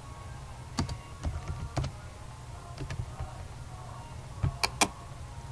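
Scattered clicks of a computer keyboard and mouse, with two sharper clicks in quick succession near the end.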